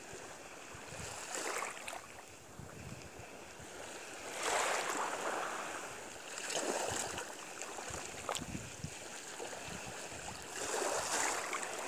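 Outdoor wind noise rising and falling in gusts every few seconds, with small waves lapping on an estuary's water.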